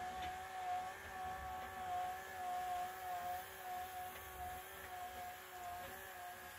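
Electric motor of an older Velux roller blind, powered by four D batteries, running with a steady whine as it rolls the blind up.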